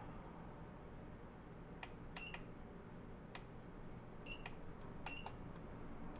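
Front-panel buttons of a 948 III soldering and desoldering station being pressed: a scattered series of sharp clicks, some of them in quick pairs, several with a short high beep.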